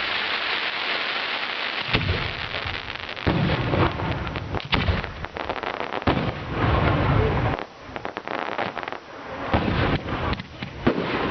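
Fireworks display: shells bursting with deep booms, several of them in runs, over a dense continuous crackle.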